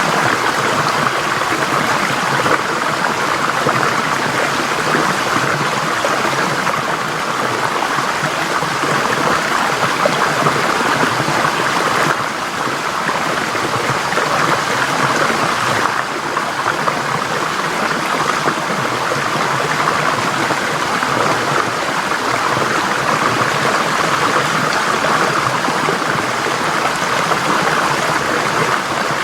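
Forest stream flowing: a steady rush and babble of water over rocks.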